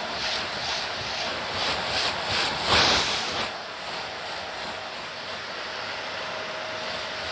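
Rhythmic crunching, about three steps a second, like footsteps on dry, crunchy dirt. The crunching stops about three and a half seconds in, leaving a steady hiss.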